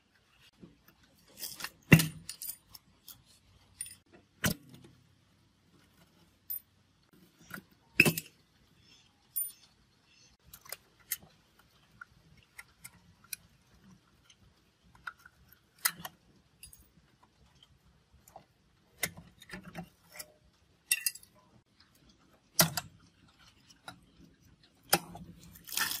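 Scattered metallic clinks and knocks from hands handling parts and fittings around a refrigerator compressor, about a dozen at irregular intervals, the loudest about two seconds in.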